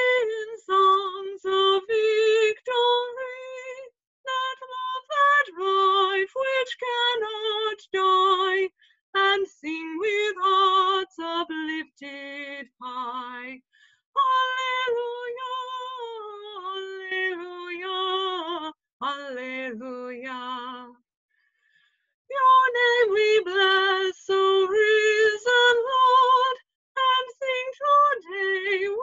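A woman singing solo and unaccompanied, in short phrases with breaths between them and a longer pause about two-thirds of the way through.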